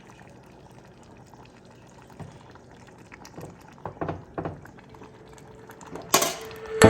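Barbacoa meat simmering in seasoned beef broth: faint bubbling with scattered small pops, then a brief loud hiss about six seconds in.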